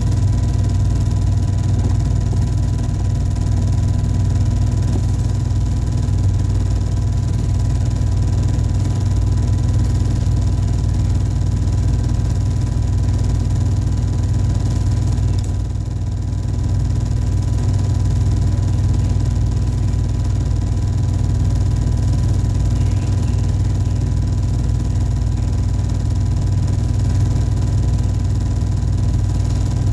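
Film projector running: a steady motor hum and whir.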